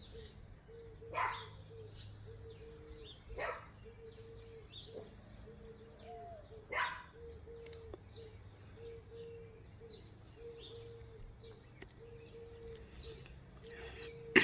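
A dog barks three times, a couple of seconds apart, over small birds chirping and a faint steady hum.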